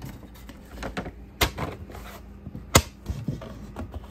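Plastic beehive foundation sheet being flexed and pushed into the grooves of a wooden frame: light scraping and handling, with two sharp clicks, one about a second and a half in and one near three seconds, and a few smaller taps.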